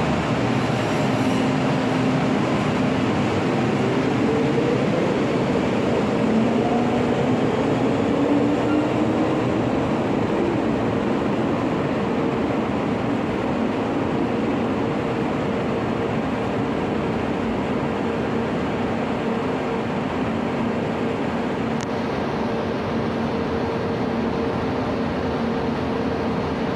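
MTR M-Train electric multiple unit running, with a continuous rumble of wheels and motors. A whine rises in pitch through the first ten seconds or so as the train picks up speed, then settles into a steady hum.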